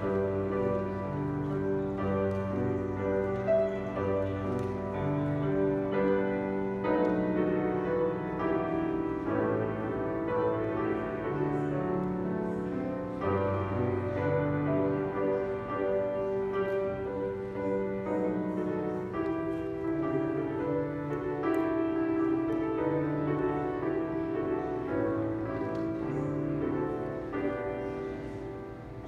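Grand piano playing a slow, sustained piece in full chords, growing softer near the end.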